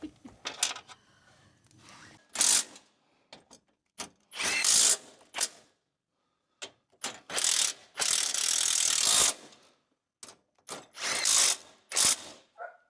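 Ratchet wrench clicking in a series of short runs, turning bolts on a truck's front-end parts, with one longer run of about a second near the middle.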